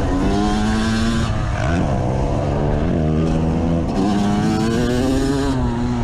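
Yamaha YZ250 two-stroke dirt bike engine under way, its pitch climbing and dropping several times as the throttle is rolled on and off, over a low rush of wind noise.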